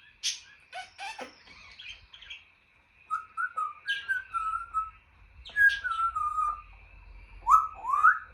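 African grey parrot making clicks and squeaks, then whistling. There are two wavering whistled phrases that slide down in pitch, then two short rising whistles near the end.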